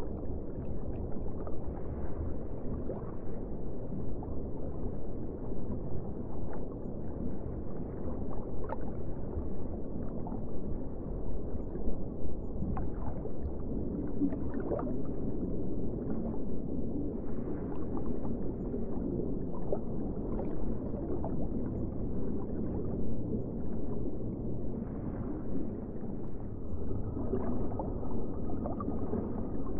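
Muffled underwater ambience: a low, steady water rumble with scattered faint bubbling.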